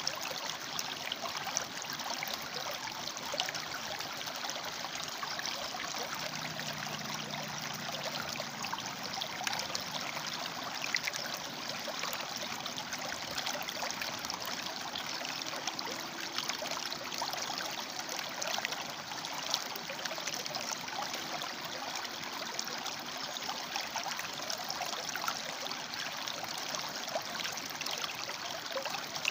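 River water flowing and splashing between rocks, a steady rush filled with small bubbling splashes.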